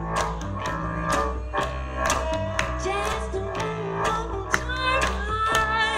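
Live acoustic music: a double bass plays a steady low groove with sharp percussive hits on the beat, while a woman's voice sings over it, most clearly in the second half.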